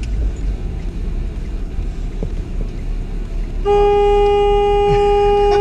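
Vehicle engine and road noise heard from inside the cab, then about two-thirds of the way in a vehicle horn sounds one long, steady, loud note.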